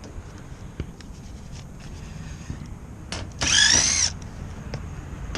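Power drill spinning out a sheet-metal panel screw: one short, loud whir that rises and falls in pitch about three seconds in. Light knocks and taps of handling come before it.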